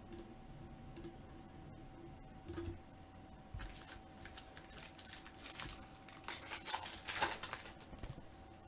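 Foil trading-card pack being torn open and its wrapper crinkled: a run of light crackles, starting a few seconds in and loudest about seven seconds in. A faint steady hum runs underneath.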